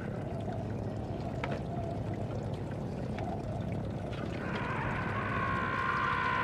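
Fuel trickling and dripping from a wrecked vehicle's tank into a metal pan, with a few faint drips over a steady low rumble. Music swells in with a sustained tone from about two-thirds of the way through.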